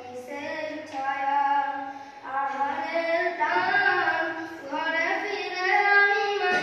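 A child singing solo and unaccompanied, holding long notes that slide from pitch to pitch, with a short breath-break a little past two seconds in.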